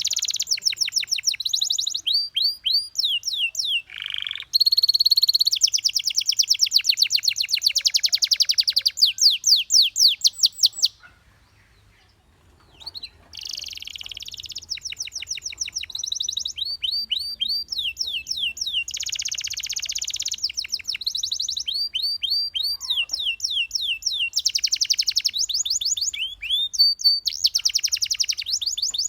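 Domestic canary singing in fast trills of rapidly repeated down-sweeping notes, the phrases changing from roll to roll. The song breaks off for about two seconds near the middle, then resumes.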